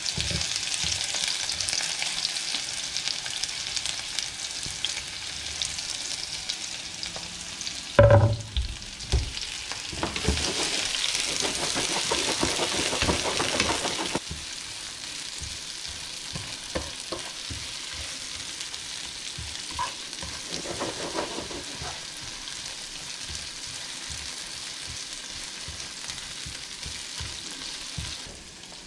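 Sliced onions sizzling in hot oil in a frying pan, with a loud knock about eight seconds in and a few seconds of clattering stirring after it. From then on the sizzle is quieter, with light clicks of the utensil in the pan.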